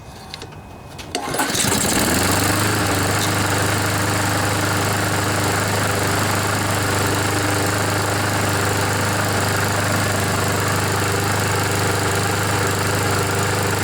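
Honda GCV single-cylinder lawn mower engine starting on choke about a second and a half in, then running steadily at an even speed. It is not yet warmed up and is burning off oil that got into the muffler when the mower was tipped over.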